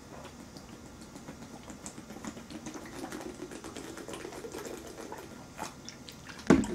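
Gulping a drink straight from a large plastic bottle: a quick run of swallows and small clicking plastic crackles, then a single louder thump near the end.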